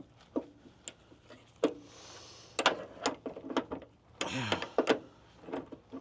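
Irregular metallic clicks and knocks of hand tools working on a stuck part on a Jeep as it is worked loose, a few coming in quick succession about halfway through, with a short falling tone about four seconds in.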